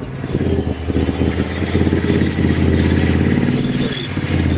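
Tank engine running loudly at a steady note, with its pitch falling and dipping briefly near the end before picking back up.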